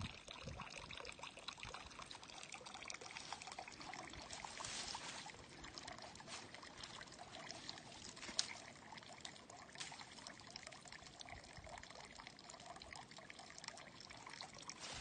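Water trickling steadily from a pipe spout into a concrete trough, faint throughout. A single sharp click a little past the middle.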